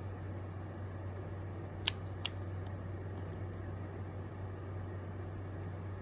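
Steady low hum and hiss of room background noise, with two small sharp clicks about two seconds in, a fraction of a second apart, and a fainter click just after.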